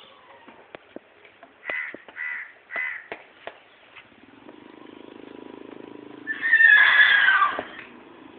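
Horse whinnying loudly once: a shrill call of over a second, about six seconds in, that drops in pitch at its end. It follows a low, pulsing rumble of about two seconds.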